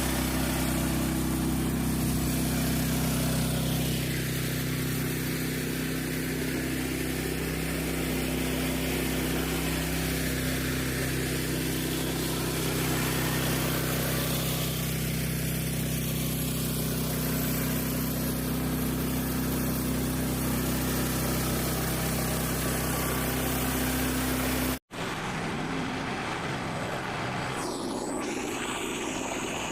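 Frontier OS27 portable bandsaw mill running steadily under power, its engine holding one speed as the blade cuts along a log. Near the end the engine tone cuts off sharply and gives way to a rougher, noisier mechanical sound with a brief falling high whine.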